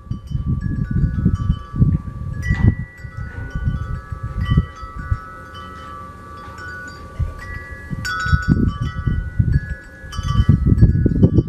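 Wind chimes ringing, their long tones struck afresh in clusters several times, over irregular low rumbling.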